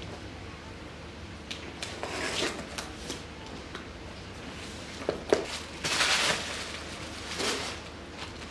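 Cardboard shipping box being opened by hand: a few short scrapes and rustles as the taped seam is cut and the flaps are pulled apart, with a couple of sharp clicks about five seconds in and the loudest scrape about six seconds in.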